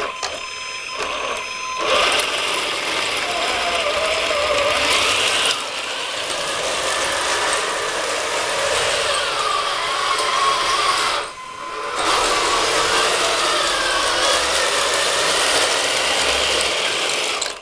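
Heng Long 1/16 RC tank chassis driving: its electric gearbox motors whirring and the plastic tracks and gears clattering, the pitch rising and falling with the throttle. The sound drops away briefly about eleven seconds in, then picks up again.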